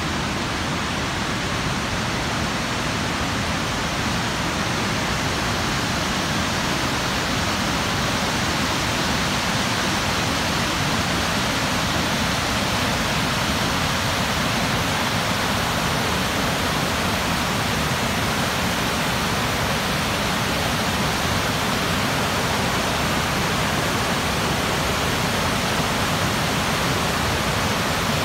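Great Falls of the Potomac River: whitewater rushing over the rocky falls and rapids, a steady, unbroken rush of water.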